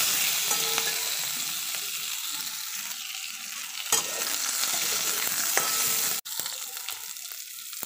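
Diced onion frying lightly in oil in a kadhai, a steady sizzle, while a metal spatula stirs and scrapes the pan, with a sharp knock about four seconds in. The sound cuts out for an instant just after six seconds, and the sizzle goes on quieter after that.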